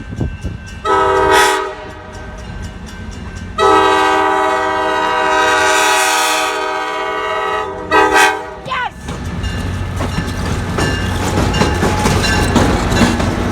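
A diesel locomotive's multi-chime air horn sounds a short blast, a long blast and another short blast. Then the train rolls close by with a low rumble and wheels clicking over the rail joints.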